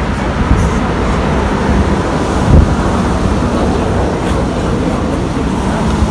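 Street ambience of road traffic with wind buffeting the microphone, a steady low rumble throughout. A short low thump about two and a half seconds in is the loudest sound.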